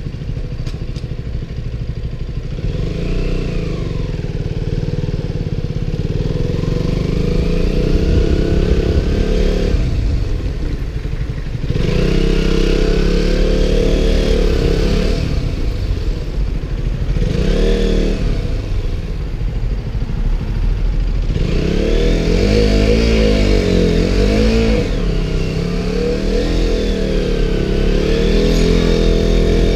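KTM Duke motorcycle engine running under way, its pitch rising and falling several times as the rider accelerates and eases off, with wind buffeting the microphone inside a waterproof camera case.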